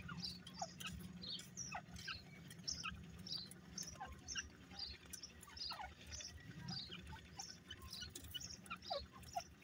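Grey francolins giving soft, high chirping calls, about two a second, with a few short notes that slide downward now and then.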